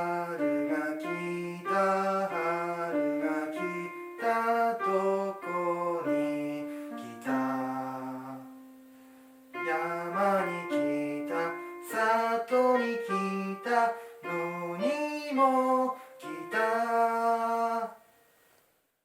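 Casio electronic keyboard playing a melody over held lower notes, note by note in steps. It fades to a short pause about eight seconds in, resumes, and stops shortly before the end.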